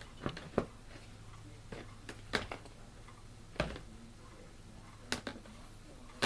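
Box fan blade being worked onto the motor shaft by hand: about five sharp, irregularly spaced clicks and knocks of the blade's hub against the shaft and housing as it is turned to line it up.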